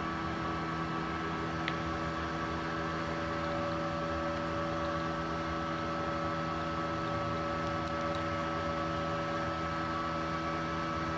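MultiPro TIG 200A-SA inverter welder switched on but not welding, its cooling fan and electronics giving a steady hum with several steady tones. A faint click about two seconds in.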